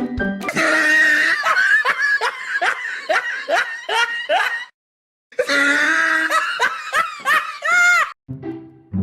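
Loud laughing: a quick run of "ha" bursts, two or three a second, that breaks off about halfway and starts again for another few seconds.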